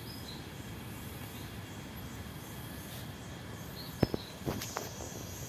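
Forest ambience with insects chirring steadily. About four seconds in comes a quick cluster of sharp clicks or knocks.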